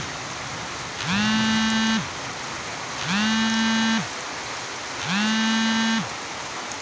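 Steady rain falling, overlaid by a repeating beep. Three times, a tone of about a second, with a quick rise at its start, sounds every two seconds and is louder than the rain.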